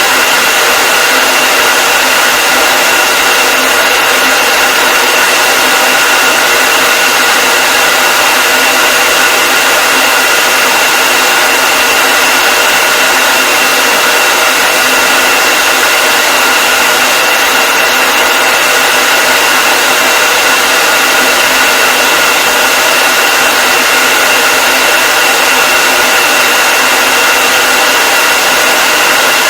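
Hair dryer running continuously at a steady speed: a dense, even rush of air with a steady whine from the motor and fan.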